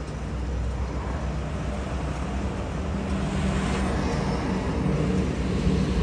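Steady road-vehicle noise: a low engine rumble and hum with tyre and road hiss, swelling slightly from about three seconds in.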